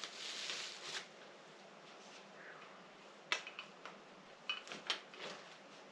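Faint handling noise from the tools and parts being unboxed: a short rustle, then a handful of light, sharp clicks and taps in the second half.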